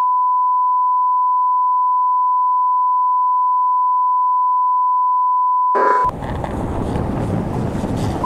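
A steady 1 kHz reference test tone, the classic bars-and-tone beep, held unbroken and cutting off suddenly about six seconds in. After the cut, loud wind buffeting on the microphone with a low rumble.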